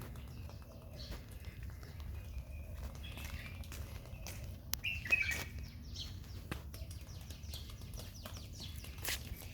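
Small birds chirping repeatedly, with scattered light taps and clicks over a steady low rumble.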